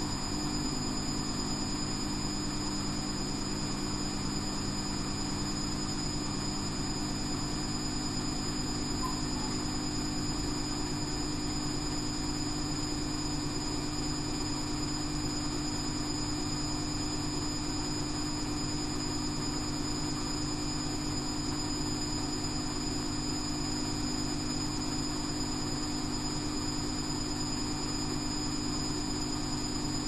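Front-loading washing machine running on a 60°C cotton programme: a steady whine and hum from the motor as the drum turns, unchanging throughout.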